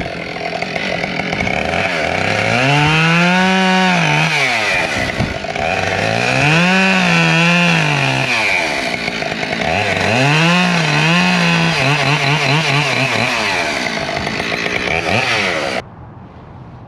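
Husqvarna 572 XP two-stroke chainsaw cutting through ash logs: three times the engine revs up to full speed and its pitch sags and wavers as the chain works through the wood, with steady chain noise in between. The sound cuts off suddenly near the end.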